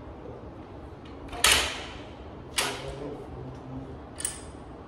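Three sharp metal clanks from a cable pulley machine's hardware, spaced a second or more apart; the first is the loudest and the last leaves a short high ring.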